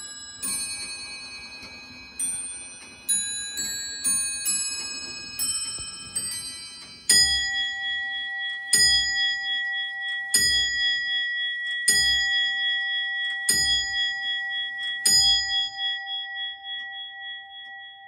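Grandfather (longcase) clock chiming a tune on several bells, then, about seven seconds in, striking the hour on a deeper bell: six strokes about a second and a half apart, each left ringing.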